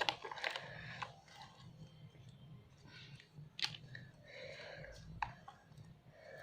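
Fluffy slime made with shaving foam and borax activator being mixed as it firms up: faint sticky squelches and small pops, the sharpest near the start and about three and a half seconds in.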